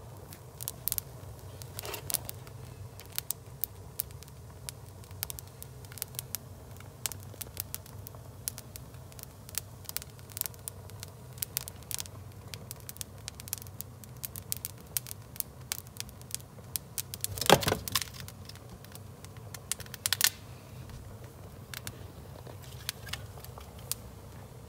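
Sneakers and wood burning: the fire crackles and pops irregularly over a low steady hum, with a louder burst of popping about 17 seconds in and a smaller one about 20 seconds in.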